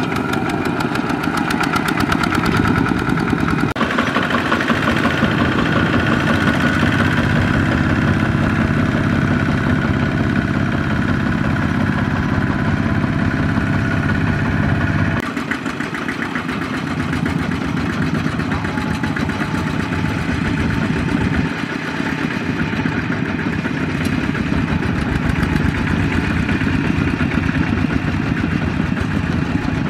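Kubota diesel engines of two-wheel walking tractors running steadily as they haul trailers of rice sacks. The engine note changes abruptly about 4, 15 and 22 seconds in.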